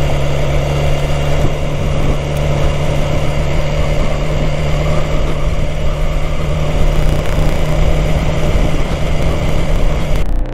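A 2016 BMW S1000XR motorcycle's inline-four engine idling at a steady pitch. It cuts off abruptly near the end.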